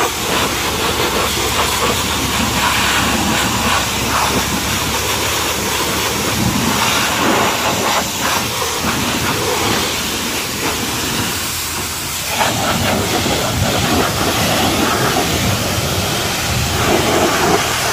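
High-pressure washer jet spraying water onto a tractor's rear wheel rim and tyre: a steady hiss of spray with a low hum underneath.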